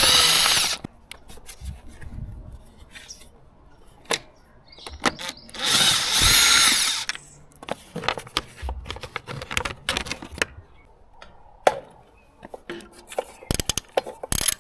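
A handheld power driver runs twice, about a second each time, its whine falling as it stops. Scattered clicks and clinks of hand tools and metal parts come in between.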